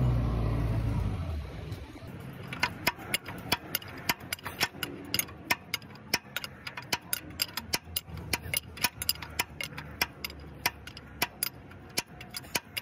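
Sharp metallic clicks, about two or three a second, as a wrench works a nut on an excavator track's idler. A low engine hum fades out in the first second and a half.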